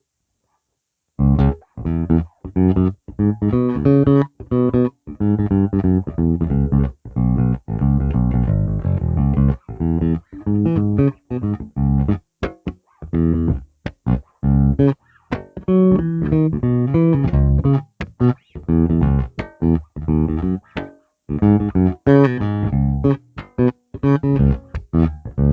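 Squier 40th Anniversary Precision Bass electric bass played unaccompanied. It starts about a second in and runs as a riff of short plucked notes with quick stops between them, with a brief pause near the end.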